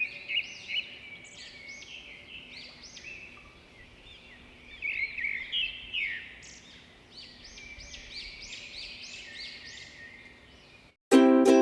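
Sparrow chicks chirping: quick runs of short, high, repeated chirps, the begging calls of nestlings being hand-fed. Near the end, loud plucked-string music cuts in suddenly.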